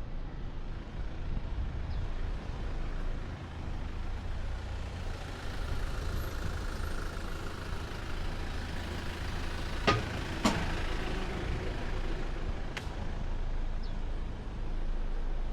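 Street traffic: a motor vehicle passes, its noise swelling and then fading over several seconds over a steady low rumble. Two sharp clicks about half a second apart come about ten seconds in.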